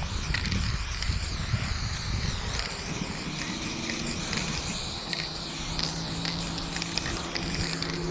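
Aerosol spray-paint can hissing as it sprays green paint onto a concrete block wall while a piece is filled in. A low steady hum comes in about halfway through.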